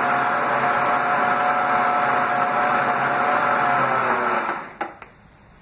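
Countertop blender running steadily, mixing a thick kefir yogurt and dissolved gelatin mixture. It is switched off about four and a half seconds in and the motor winds down, followed by a faint click or two.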